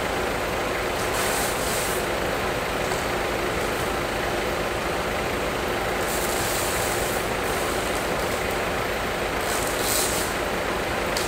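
Heavy truck engines running steadily in a container yard, with three short high hisses of air.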